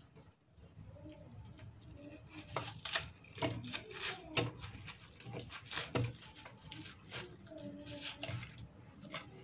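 Kitchen knife slicing a watermelon wedge into pieces over a plate: a run of sharp clicks and knocks, thickest a couple of seconds in and easing off near the end.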